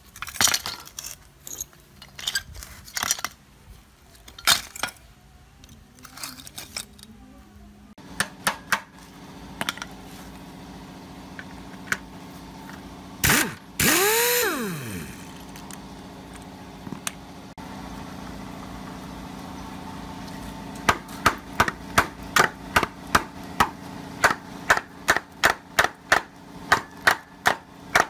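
Pneumatic impact wrench briefly spinning up and winding down on the hub nut of a rusted concrete-mixer wheel, with scattered metal clanks before it and a steady hum under it. In the last third comes an even run of sharp metal knocks, about two a second.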